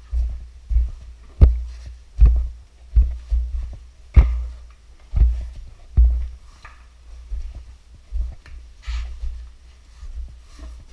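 Irregular low thuds and scuffs, about one a second, with a few breathy hisses near the end: a caver clambering through a cave passage, knocking the gear that carries the microphone.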